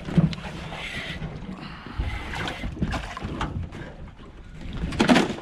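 Water sloshing against the hull of a small boat, with wind on the microphone and scattered irregular knocks of gear on the deck, and a louder rush of noise near the end.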